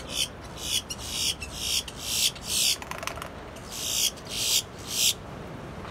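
Boat-tailed grackle giving a series of about a dozen short, harsh, high-pitched notes over five seconds, with a quick run of dry clicks in the middle. This is the castanet-like clacking that the uploader credits to the bird's wings.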